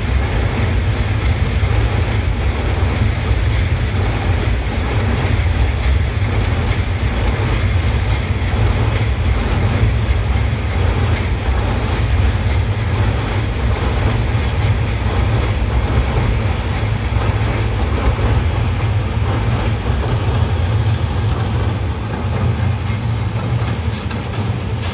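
Freight train of covered wagons rolling by on a steel girder bridge: a steady, heavy rumble of wheels on rail, easing a little near the end.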